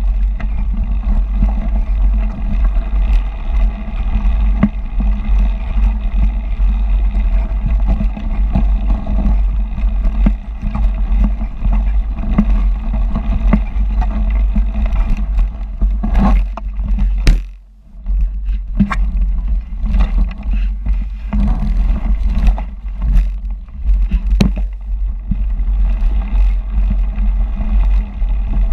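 Mountain bike riding noise picked up by an action camera on a snowy trail: a steady low rumble of wind on the microphone and tyres rolling over snow, with frequent knocks and rattles from bumps. The rumble drops away briefly a little past the middle.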